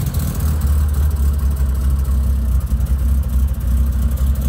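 Ford Escort RS2000's 2.0-litre Pinto four-cylinder engine idling steadily while it warms up.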